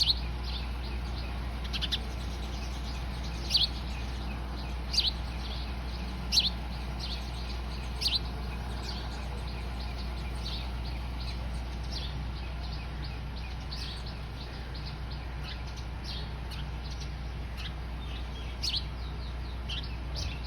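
Eurasian tree sparrows chirping: short, high chirps, louder ones every second or so through the first eight seconds and again near the end, with many fainter chirps in between. A steady low hum runs underneath.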